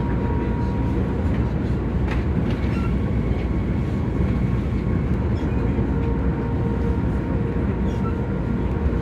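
Tama Monorail car running along its track, heard from inside the cabin: a steady low rumble from the rubber-tyred straddle-beam car on its concrete guideway, with a faint steady whine.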